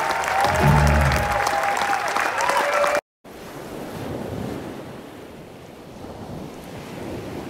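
Live band music from an outdoor concert stage, bass and sustained notes, that cuts off abruptly about three seconds in. A softer rushing noise like surf follows, swelling and fading.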